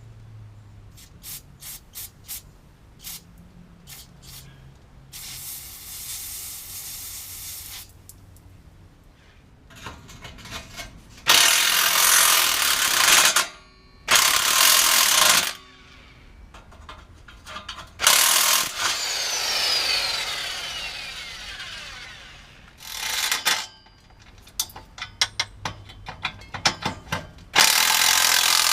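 Bolts on a car's exhaust being undone: a hand ratchet clicking in short runs, and a cordless impact wrench running in four or five loud bursts of one to two seconds. After one burst a falling whine trails off as the tool spins down.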